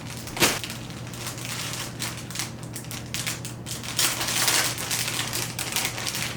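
Packaging crinkling and rustling as it is handled during an unboxing, in irregular crackles, with a sharp click about half a second in and a denser stretch of rustling about four seconds in.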